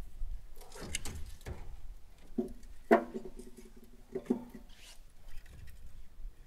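Split firewood logs being handled: a scraping rustle as they are pulled off the woodpile, then three hollow wooden knocks with a short ring as the logs clunk together and are laid in a steel grill firebox. The middle knock, about three seconds in, is the loudest.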